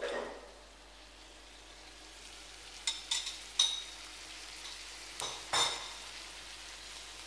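Chopped tomatoes, green peppers and garlic sizzling in olive oil in a frying pan: a steady hiss, with a few light clinks and knocks from about three to six seconds in.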